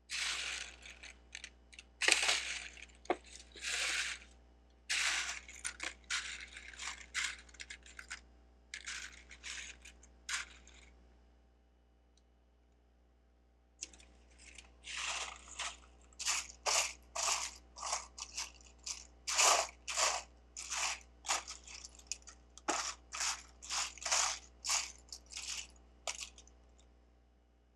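Loose plastic Lego bricks clattering as they are handled, in short bursts, with a pause of a few seconds near the middle followed by a quicker run of rattles, about two a second.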